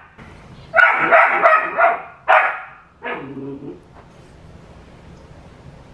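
Puppy barking: a quick flurry of sharp barks about a second in, a lower grumbling sound just after, then quiet. She is barking for a bone like the one her sister dog is chewing.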